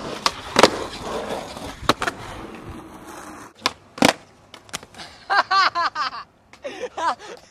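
Skateboard wheels rolling on concrete with sharp clacks of the board popping and landing, then after a short lull one loud slap of the board hitting the asphalt on a bailed trick. Near the end, short rapid hoots and yells from people's voices.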